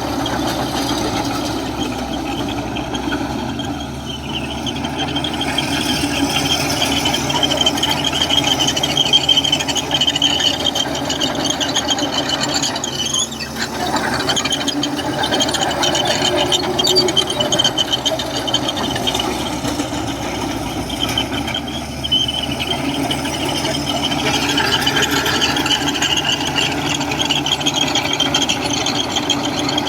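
Komatsu bulldozer working, its diesel engine running steadily under load, with a high wavering squeal from the steel crawler tracks.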